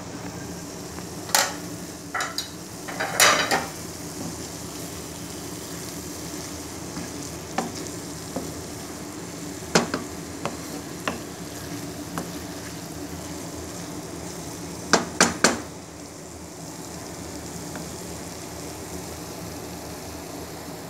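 Wooden spatula stirring sliced eggplant and zucchini in a non-stick frying pan, with scattered knocks and scrapes against the pan over a steady sizzle. There is a quick run of three knocks about fifteen seconds in.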